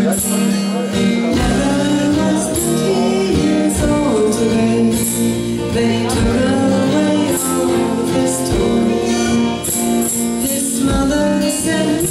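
Live acoustic band: a woman singing over strummed acoustic guitar and a drum kit with regular cymbal strokes.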